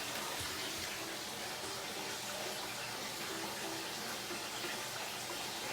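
Water running steadily from a tap into a bath, an even rush of noise.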